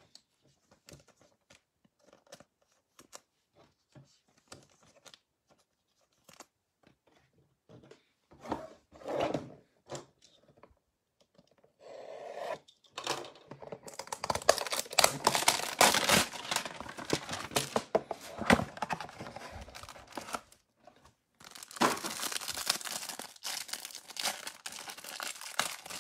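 Hanger box of trading cards being opened: light handling clicks at first, then from about halfway a long stretch of packaging tearing and crinkling, broken by a short pause before it starts again.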